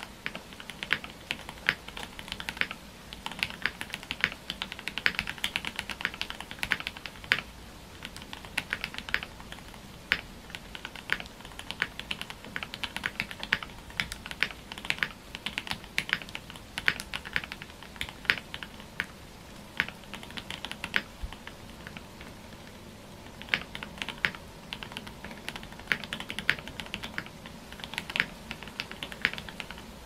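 Typing on a Tofu65 custom mechanical keyboard with lubed Gateron Ink V2 Black linear switches, a carbon fiber plate, case foam and a tape mod, under GMK keycaps. It comes as fast runs of keystrokes with short pauses, including a longer pause of a couple of seconds about two-thirds of the way through.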